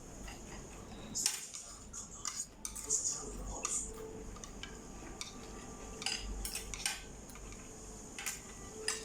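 Cutlery clinking and scraping against a plate while eating, as a string of short irregular clicks.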